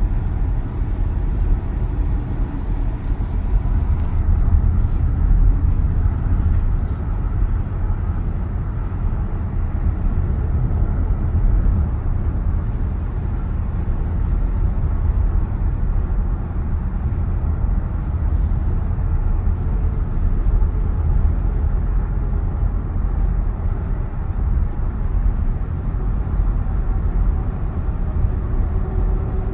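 Steady road and wind noise inside the cabin of a 2022 Tesla Model Y driving along: an even low tyre rumble with wind hiss over it. No electric-motor whine stands out.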